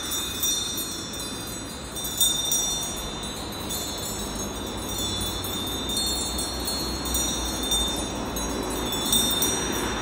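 Small metal bells ringing irregularly, several high tones overlapping and fading, with a sharper clink about two seconds in and again near the end, over a low steady rumble.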